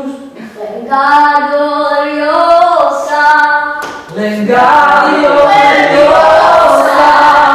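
Voices singing long held notes, with several voices singing together from about halfway through.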